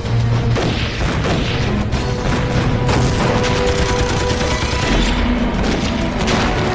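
Battle sound effects: rapid machine-gun fire and explosions, mixed with background music.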